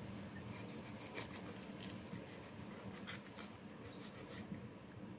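Broad cleaver slicing along a small mackerel's ribs and backbone: faint, irregular scratchy clicks and scraping, with a sharper click about a second in and another about three seconds in.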